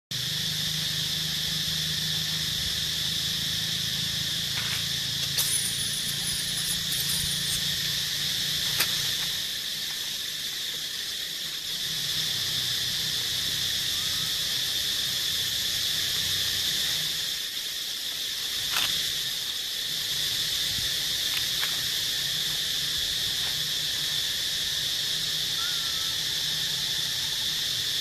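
Steady high-pitched insect chorus droning without a break, with a few faint clicks over it.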